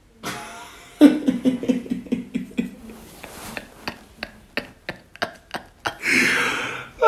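A man laughing hard and trying to hold it in. About a second in come rapid pulsing 'ha-ha' laughs, then a string of short, sharp breathy snorts, and near the end a long wheezing breath.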